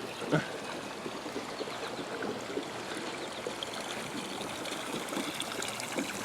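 Swimming pool water splashing and trickling steadily as the newly restarted return jets push water in, with air still bubbling out of the lines.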